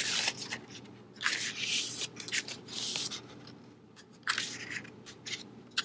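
Pages of a paper notebook being turned by hand, rustling in several short bursts spread over a few seconds.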